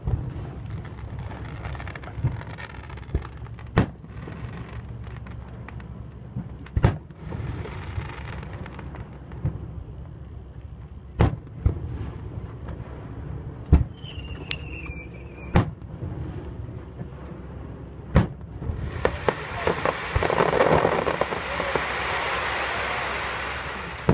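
Aerial fireworks display: shells bursting with sharp booms every few seconds, about six loud ones. A longer stretch of dense noise fills the last few seconds.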